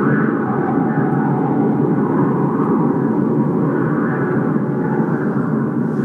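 Blizzard wind blowing hard across the microphone: a loud, steady low rush with gusts that swell and fade.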